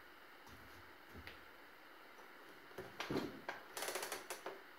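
Recoil pull-starter of a Poulan Pro chainsaw pulled by hand twice, the cord and starter mechanism rattling and clicking as the engine is turned over.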